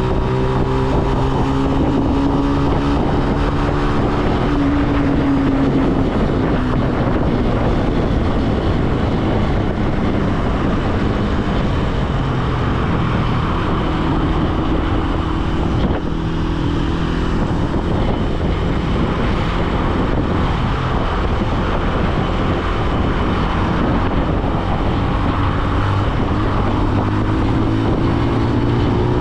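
Benelli BN 125's single-cylinder four-stroke engine running under way in traffic, its pitch dropping a few seconds in as it slows and climbing again near the end as it picks up speed, with steady wind noise on the microphone.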